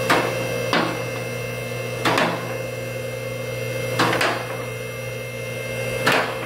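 About six sharp knocks at uneven intervals, two of them close together about four seconds in, over a steady hum.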